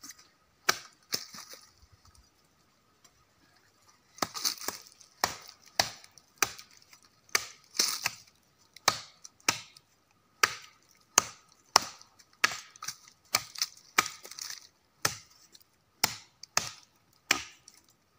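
Machete chopping into the base of a charred tree trunk, sharp wooden strikes. A few strokes, a pause of about two seconds, then steady chopping at about two strokes a second.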